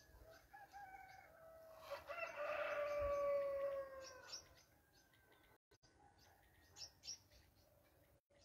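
A rooster crowing, its long drawn-out call sliding down in pitch and fading about four seconds in, with small birds chirping throughout.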